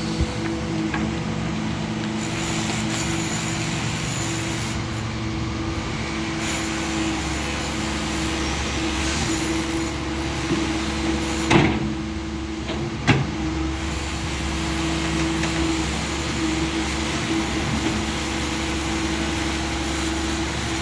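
Doosan DX140 wheel excavator's diesel engine running steadily with a constant hum. Two sharp knocks come about a second and a half apart near the middle.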